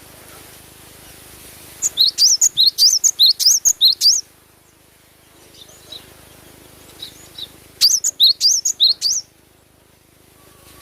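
Cinereous tit (gelatik batu) singing: two bursts of quick, high chirping notes, about six a second, with a few faint notes between them.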